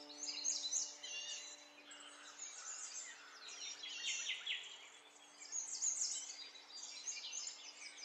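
A chorus of small birds chirping and twittering, many quick high calls overlapping, with a faint held music note underneath.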